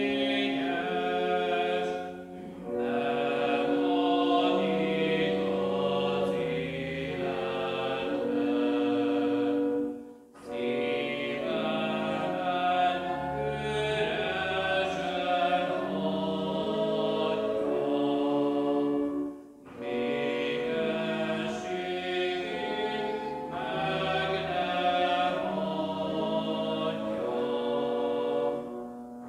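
A church congregation singing a hymn together in slow, held notes, with brief pauses between the lines about 2, 10 and 19 seconds in and again near the end.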